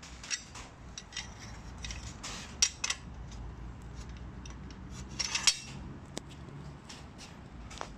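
Metal clicks, knocks and clatter from the roller-support arm of an AEG PSU1000 mitre saw stand being slid and knocked in its metal bracket, with the loudest knocks about two and a half seconds in and a quick cluster about five and a half seconds in.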